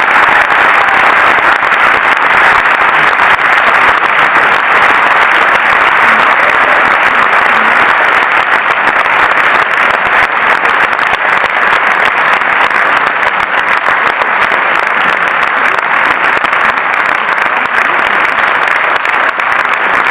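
A large audience applauding steadily and loudly, many hands clapping at once.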